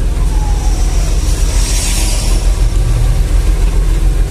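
Heavy truck's diesel engine running steadily while driving, a loud low drone mixed with road noise.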